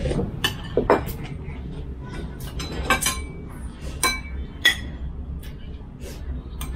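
Metal spoons and forks clinking and scraping against ceramic plates and bowls during a meal: an irregular scatter of sharp clinks, a few of them ringing briefly, loudest around three to five seconds in.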